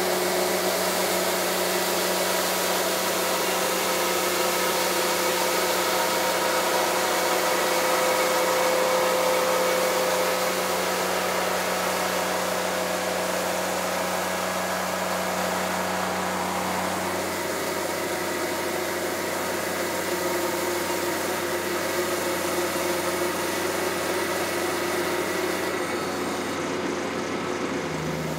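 Ventrac 4500 articulating tractor's engine running steadily while its HB580 power broom's brush spins against the ground, sweeping with a steady brushing hiss. The engine note shifts about two-thirds of the way through.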